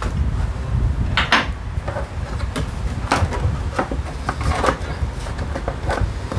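Brake shoes and their return springs being handled and fitted at a scooter's rear drum brake: a string of small, irregular metallic clicks and knocks over a steady low hum.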